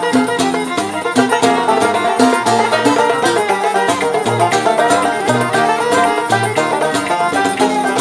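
Instrumental break of a song: a fast plucked-string melody on an Algerian mandole over a repeating bass pattern, with no singing.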